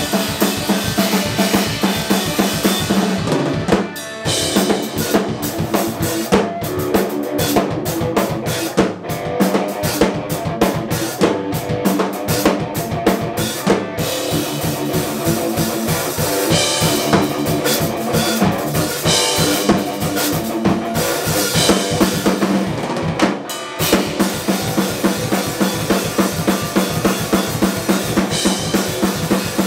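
Rock band playing live: a drum kit with electric guitars through amplifiers, the music breaking off briefly about four seconds in and again later.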